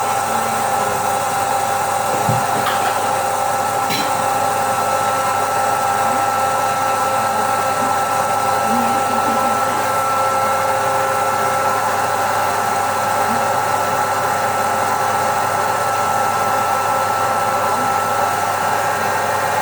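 Electric popcorn machine running, a steady whirring blower with a constant whine over it, and a couple of faint ticks a few seconds in.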